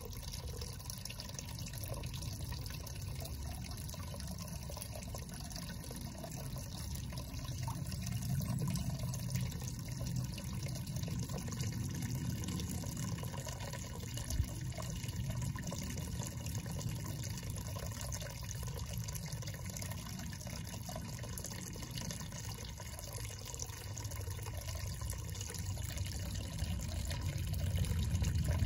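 Steady splashing and trickling of water falling into a garden fish pond, with one brief knock about halfway through.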